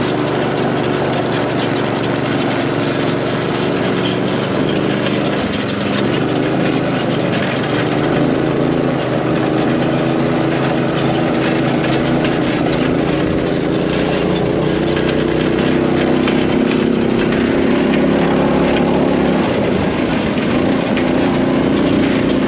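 Go-kart's small engine running steadily as the kart drives across a grassy field, its note dipping briefly near the end, with wind rushing over the microphone.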